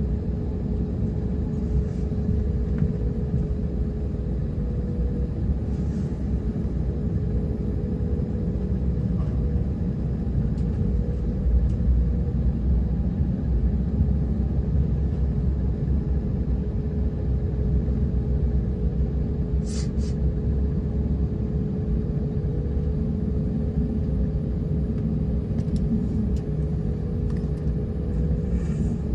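Airliner cabin noise: a steady low rumble with a constant hum, and a brief click about twenty seconds in.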